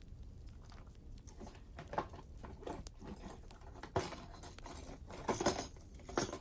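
Christmas tree decorations being handled, giving scattered small clicks and rustling. There are sharp clicks about two and four seconds in and the loudest burst of rustling near the end.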